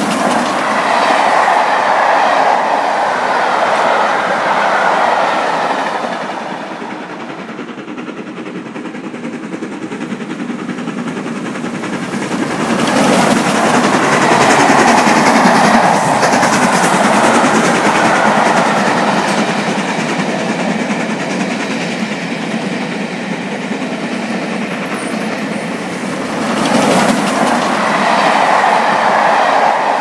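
Steam-hauled trains running past on the rails, wheels clattering over the rail joints. The sound swells and fades as the trains pass: it drops for a few seconds about six seconds in, then grows loud again.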